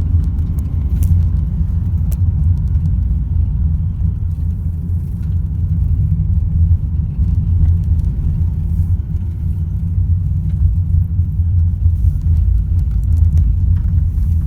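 Steady low rumble of a car's road and engine noise heard from inside the cabin while driving, with a few faint clicks.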